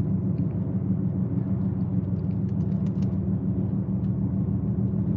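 Steady low rumble of a moving car heard from inside its cabin: road and engine noise, with a few faint light ticks.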